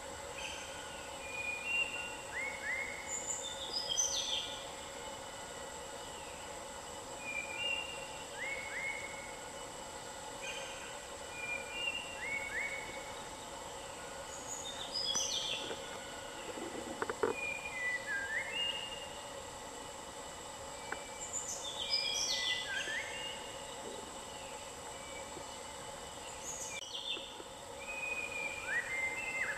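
A forest bird singing the same short phrase of whistled notes every few seconds, over a steady drone. A short low knock sounds once a little past halfway.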